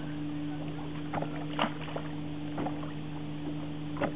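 Boat motor running with a steady low hum, with a few short light knocks and clicks scattered over it.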